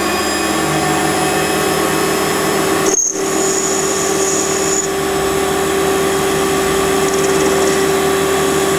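Small benchtop metal lathe running steadily, its motor and spinning chuck giving a constant hum while the tool trims excess material off the turned part. A very brief break about three seconds in is followed by a thin high whine for under two seconds.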